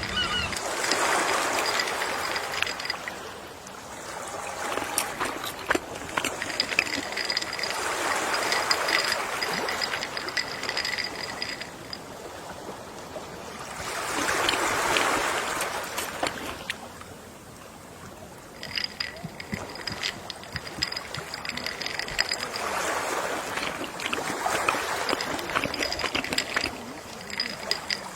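Gentle sea waves washing in and drawing back, a swell about every seven seconds, with small crackles of water between them.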